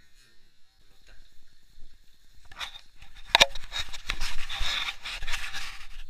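Rubbing and scraping handling noise on a handheld action camera while its holder walks, with a sharp click about three and a half seconds in.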